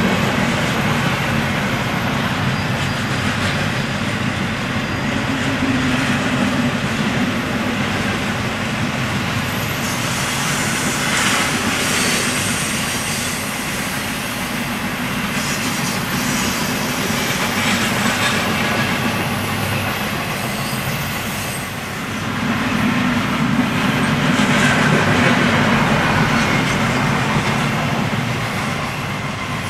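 Intermodal freight train cars, double-stack container well cars and trailer cars, rolling past: a steady rumble and clatter of steel wheels on the rails. It dips briefly and then grows louder about three quarters of the way through.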